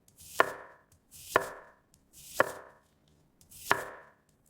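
Kitchen knife chopping vegetables on a cutting board: four firm chops about a second apart, each with a short swish just before the blade lands.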